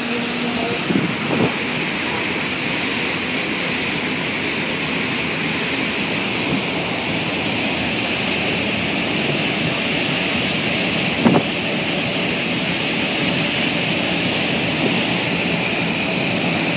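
Steady rushing of foaming wake water churned up behind a high-speed catamaran ferry, with wind on the microphone and a steady high hum underneath. A brief knock about eleven seconds in.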